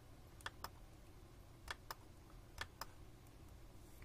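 Computer mouse clicked in three quick double-clicks, each a pair of sharp clicks, spaced about a second apart, over a faint steady low hum.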